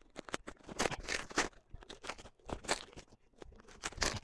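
Bubble wrap and plastic packaging crinkling and tearing as a parcel is pulled open by hand, in irregular crackly bursts.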